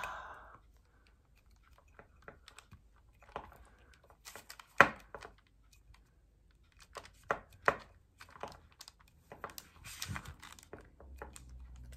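Scattered light clicks and taps of hands handling a glass wine bottle and pressing soft modelling-clay flowers onto it, with one sharper knock about five seconds in.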